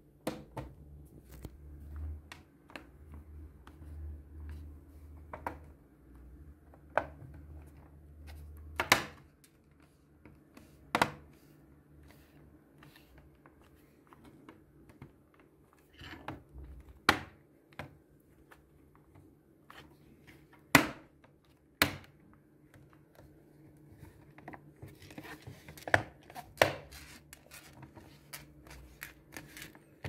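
Plastic back cover of a Lenovo Z51 laptop being pressed into place by hand: irregular sharp clicks and snaps as its clips seat, with low rubbing handling noise over the first several seconds.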